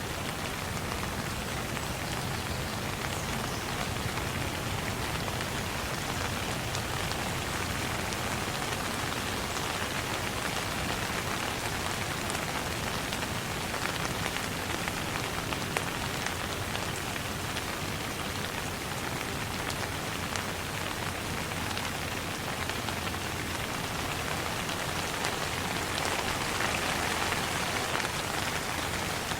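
Steady rain falling and pattering on a surface, an even hiss with scattered individual drop impacts, growing slightly louder near the end.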